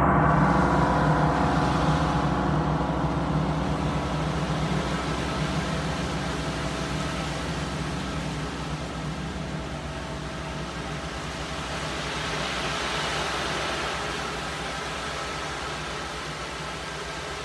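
Large gongs ringing in a dense, sustained wash of overlapping tones that slowly fades. A soft felt mallet keeps them sounding, and there is a gentle swell in the higher overtones a little past the middle.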